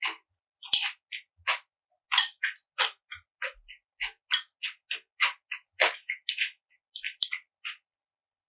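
Close-miked eating sounds: a quick run of short, sharp, wet chewing clicks and crunches, several a second, with silence between them.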